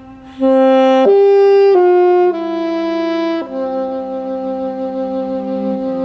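Saxophone and cello playing a slow duet. The saxophone comes in loudly about half a second in with long held notes stepping down in pitch, then jumps back up to a held note. The cello sustains lower notes underneath.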